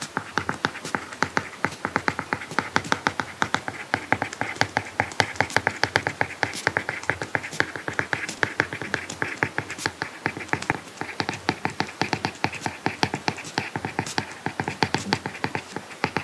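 Apple Pencil tip tapping and scratching across an iPad screen fitted with a matte paper-like screen protector while writing by hand: a rapid, steady run of small ticks, several a second.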